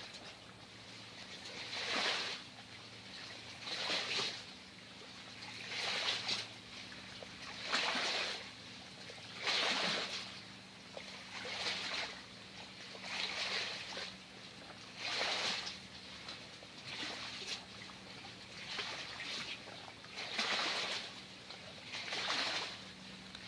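Rhythmic swishing of water, swelling and fading about every two seconds, over a steady low hum.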